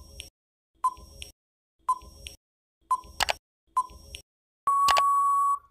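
Quiz countdown timer sound effect: five short ticks about a second apart, each with a brief beep, then one long steady beep near the end as the time runs out.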